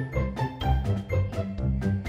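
Playful background music with a steady beat.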